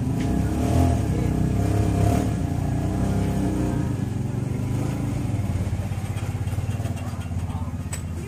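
An engine running steadily, a low hum that wavers slightly, a little louder in the first couple of seconds and easing off gradually.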